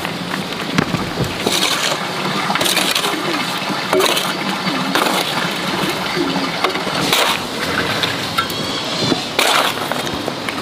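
A hand digging tool striking and breaking up dry, rocky earth: about six irregularly spaced strikes with crumbling clods between them.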